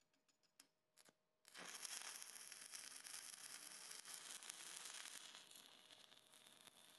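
A few faint clicks, then from about a second and a half in the steady crackling hiss of a stick-welding arc burning a 3/32-inch 7018 electrode.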